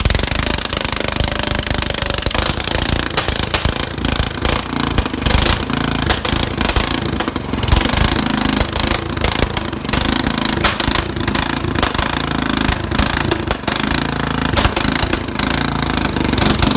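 Straight-piped lawnmower engine running loud, a rapid rough crackle of unmuffled exhaust pulses. It is running with its fuel shut off, so it is leaning out.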